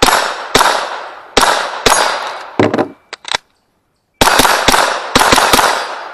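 Rimfire rifle firing quick strings of shots at a timed steel-target stage: about four shots, a pause of about a second, then about six more in rapid succession, each trailing off in a decaying echo.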